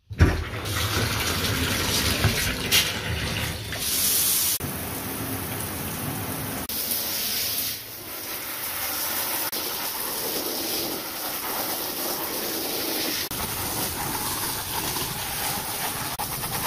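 Handheld shower head spraying water over a Shetland sheepdog's coat and the bathtub. The water comes on with a sudden gush at the start, then runs steadily, its sound shifting as the stream moves over the dog and the tub.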